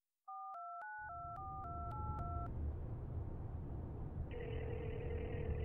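A phone number being dialled on a telephone keypad: a quick run of about eight touch-tone beeps, each a different pitch pair. A couple of seconds later the ringback tone sounds once for about two seconds as the call rings through. A low steady rumble runs underneath from about a second in.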